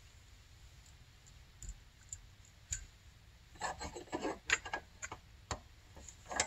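Light clicks and clatter of a carburetor and its small parts being handled and set in a bench vise for reassembly. There are a few isolated clicks at first, then a busier run of clicking in the second half.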